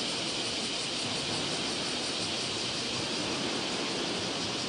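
Distant EF210 electric locomotive and its freight train approaching on the line, a low rumble that grows slightly, under a louder, steady high-pitched hiss.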